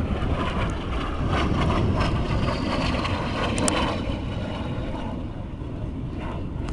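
L-39 jet trainer's turbofan engine heard as it flies past: a steady rumble, with a high whine that falls in pitch about midway through. Wind buffets the microphone.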